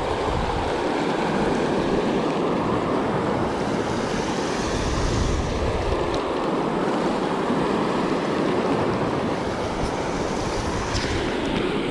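Fast-flowing river rushing through rapids, a steady rush of water, with wind buffeting the microphone at times.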